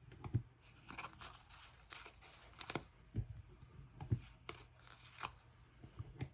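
Scrapbook paper pieces being handled and trimmed: irregular short rustles and tearing sounds, with a few soft knocks on the work surface.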